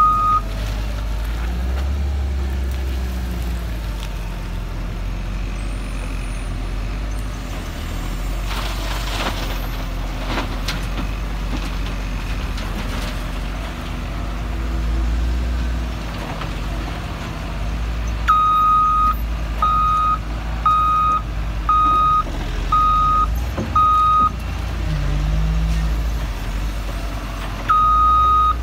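Wheel loader's diesel engine running with a steady low rumble, and its reverse alarm beeping about once a second for several beeps about two-thirds of the way through, starting again near the end.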